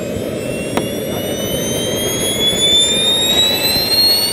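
Model jet turbines (JetsMunt 166) running on the ground, a rising whine over a steady rush as they spool up. A single brief click about a second in.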